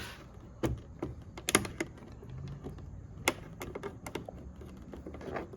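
Irregular sharp clicks and taps of a Camaro's plastic trunk trim being worked loose.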